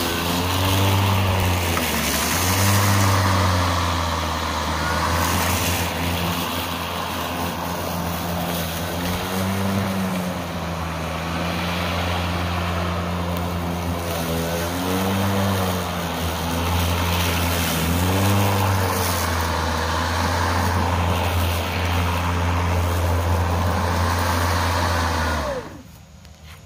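Hart 40-volt brushless 20-inch cordless push mower running and cutting thick grass, its steady motor-and-blade hum sagging in pitch and recovering several times as the load comes on. It shuts off abruptly near the end.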